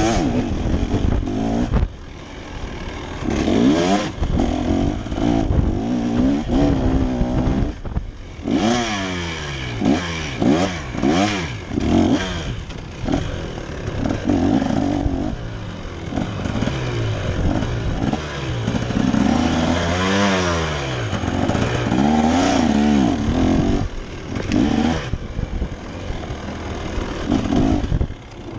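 KTM dirt bike engine revving hard under a trail rider, its pitch climbing and then dropping again and again as the throttle is worked and gears change over rough ground.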